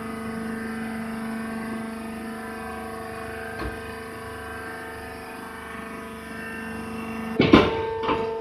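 Steady hum of a sawdust press baler's hydraulic power unit running, a motor-driven pump holding a constant pitch. About seven seconds in the hum cuts off and a loud clunk follows, with a couple of lighter knocks.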